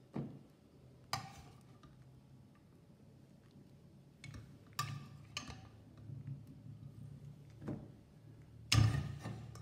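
Steel spoon clinking against a pressure cooker pot and a ceramic plate as boiled raw mangoes are lifted out: about six sharp, separate clinks, the loudest near the end.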